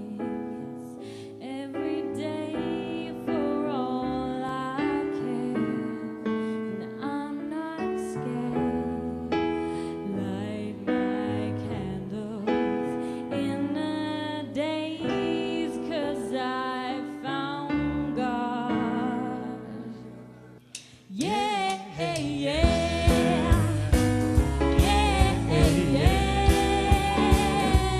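A woman singing a slow, soulful number with a jazz band accompanying. About 21 seconds in it cuts to a louder, up-tempo band number driven by a drum kit, with a steady beat about twice a second.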